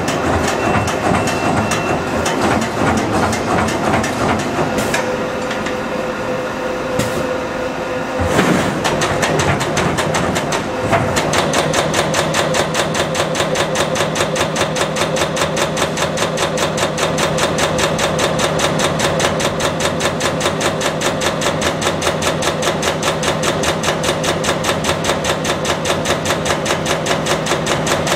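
45-ton Wiedemann Magnum 5000 CNC turret punch at work on sheet metal: irregular punch hits over a steady machine hum, then, from about eleven seconds in, a fast, even run of punch strikes that keeps going.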